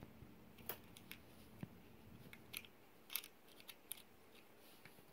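Faint, scattered clicks and small crackles from a Hatchimals toy's egg shell pieces being handled, a few taps a second apart.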